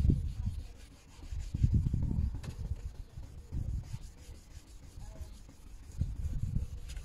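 Hand wet-sanding a hazy plastic car headlight lens with fine-grit wet-and-dry paper: irregular rubbing strokes, strongest about two seconds in and again near the end.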